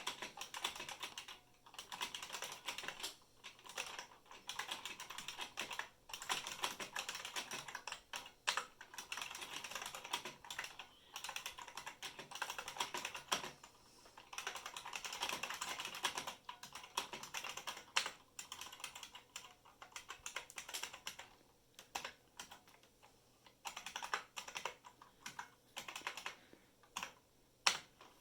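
Typing on an IBM Model M keyboard with buckling-spring key switches: fast runs of keystroke clicks broken by short pauses, thinning to slower single keypresses near the end.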